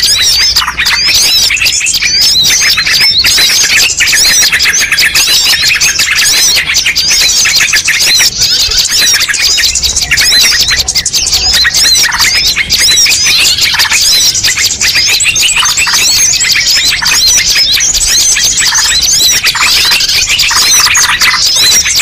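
Dense chorus of many small birds chirping and squawking over one another without a break, a mixed bird-lure call recording. The calls are rapid, short and high-pitched.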